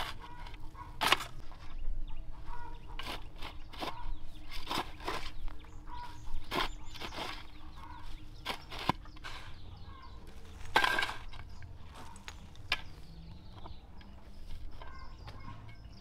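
Chickens clucking, with many irregular sharp crackles and rustles throughout.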